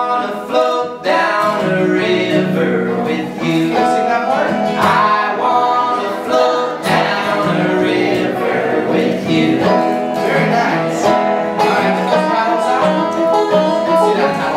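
A banjo and an acoustic guitar playing a folk song together.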